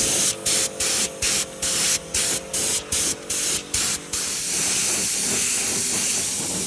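A spray hissing in quick short bursts, about two or three a second for some four seconds, then one steady unbroken hiss.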